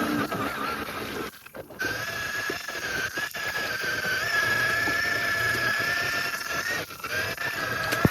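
Radio-controlled rock crawler's electric motor and gear drive whining at a steady pitch as it crawls over rocks, with light clicks and crunches of tyres and rock. The whine cuts out for a moment about a second and a half in, picks up again, and dips briefly near the end.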